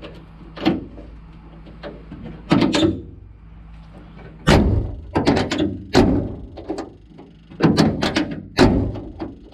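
Door lock and latch mechanism of a Datsun 521 pickup door being worked with the key: a series of sharp clicks and clunks, busiest in the second half, as the newly refitted lock is tested.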